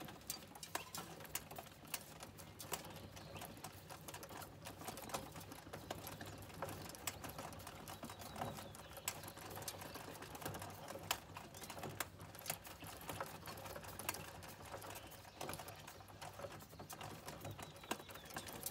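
Seed meter and chain drive of an Allis-Chalmers corn planter row unit run through a test, clicking and rattling quickly and steadily, over a low steady hum. This row unit has been under-seeding, dropping about 20 seeds in 32 feet.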